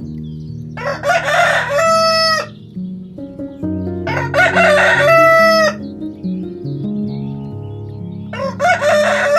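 Rooster crowing three times over background music, the third crow cut off abruptly.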